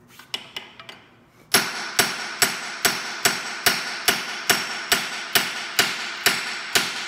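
Hammer striking a steel drift to drive out a stuck brake pin on an Allis-Chalmers C tractor's axle housing. A few light taps, then from about a second and a half in a steady run of hard, ringing metal-on-metal blows, about two and a half a second.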